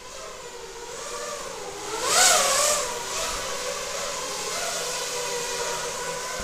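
Racing quadcopter's brushless motors (Cobra 2204 2300kv spinning 5-inch three-blade props) whining at a steady pitch. About two seconds in, a throttle burst makes them louder and their pitch rises and falls, before they settle back to a steady whine.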